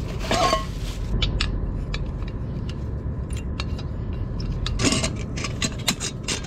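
Camp-stove gear being handled: sharp metal clicks and scrapes as a small stove is fitted to a Coleman gas canister and a metal kettle is set on it, over a steady low rumble.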